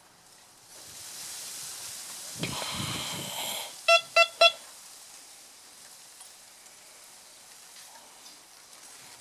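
C.Scope CS1MX metal detector giving three quick, identical beeps as a cut-half silver hammered coin is passed over its search coil: it signals the silver coin as a target. The beeps follow a few seconds of hiss and low rumble.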